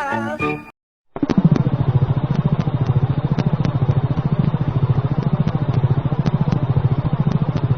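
A sung music clip ends, and after a brief gap a steady, rapidly pulsing low engine-like hum starts about a second in and runs on evenly.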